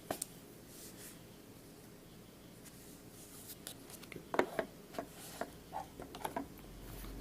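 A pen being handled and written with: faint scratching, then a run of small irregular clicks and taps from about three and a half seconds in.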